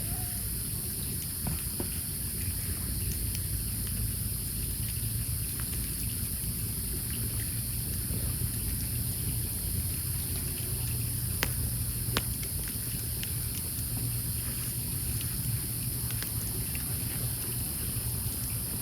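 Burning log campfire crackling, with scattered small pops and two sharper pops about eleven and twelve seconds in, over a steady high-pitched background hiss.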